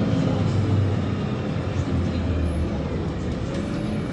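LiAZ-5292.67 city bus running on compressed natural gas, heard from inside the cabin while driving: a steady low engine rumble with road noise, easing a little in loudness toward the end.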